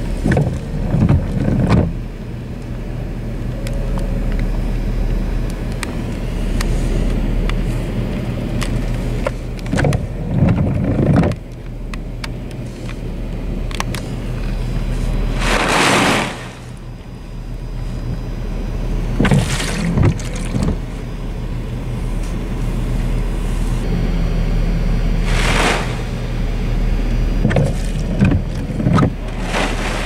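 Storm wind and rain heard from inside a car cabin: a steady low hum with gusts buffeting the car in low thumps, and three loud rushing gusts, one about halfway through, one a few seconds later and one near three-quarters of the way. Rain ticks on the glass.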